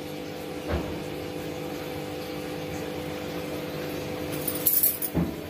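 Steel kitchen bowls handled on a stone counter: a light knock about a second in, then a brief clatter and a dull knock near the end, over a steady low hum.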